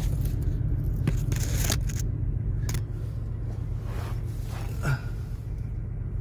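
Steady low drone of an idling engine, with a few scrapes and knocks in the first three seconds.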